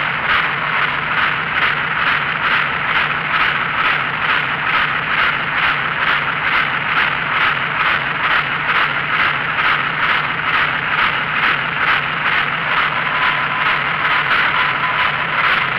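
Deutz D 100 06 tractor's air-cooled six-cylinder diesel idling, heard from inside the cab, with a steady rattle pulsing about three to four times a second.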